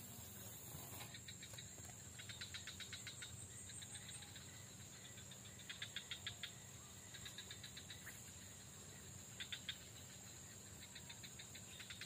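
Faint insects in the swamp vegetation chirping in short rapid pulse trains every second or two, over a steady high-pitched insect drone.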